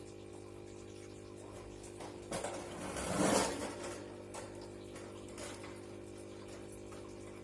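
Packaging being handled during an unboxing: a rustling, scraping swell about two to four seconds in, over a steady low hum.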